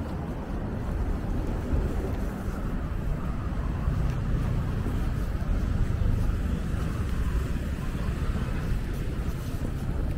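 City street ambience: a steady low rumble of traffic mixed with wind buffeting the microphone.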